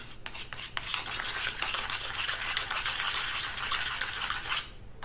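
A spoon stirring a small amount of thick brown-sugar, balsamic and olive-oil glaze in a small dish, scraping continuously with faint clicks, then stopping near the end.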